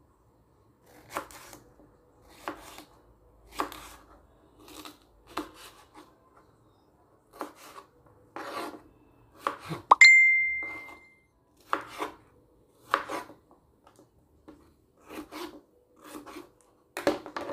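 Kitchen knife slicing a yellow bell pepper on a plastic cutting board, each stroke a knock of the blade on the board, about one a second. About ten seconds in, a single sharp metallic clink rings on briefly, the loudest sound here.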